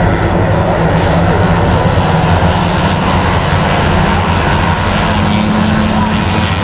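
A steady engine drone running at an even pitch, with rushing noise over it.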